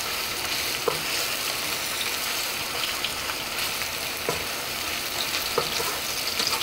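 Sliced onions sizzling steadily in hot oil in a nonstick wok while a wooden spatula stirs them, with a few light knocks of the spatula against the pan. The onions are at the softening stage, not yet browned.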